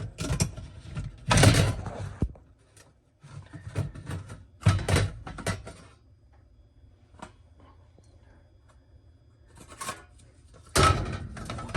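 Dishwasher being opened up and handled: a series of clattering, sliding knocks in separate bursts, loudest about a second and a half in and again near the end, over a faint low hum.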